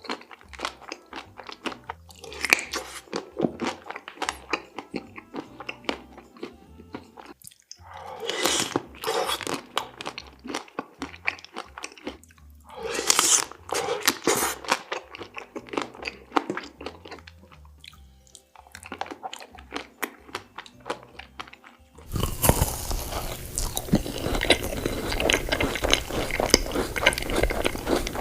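Close-miked biting and chewing of chocolate-coated ice cream bars: crisp crunches of the chocolate shell in clusters, with softer wet chewing between. About 22 seconds in, the sound shifts to a hissier recording with dense, continuous crunching.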